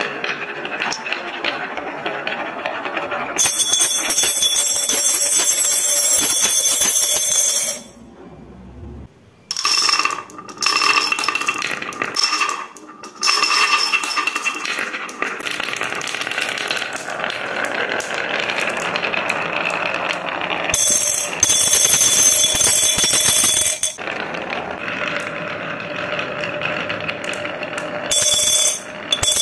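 Marbles rolling and clattering down a marble run track, with three stretches of high, bell-like ringing rattle lasting a few seconds each. A brief near-quiet gap comes about eight seconds in.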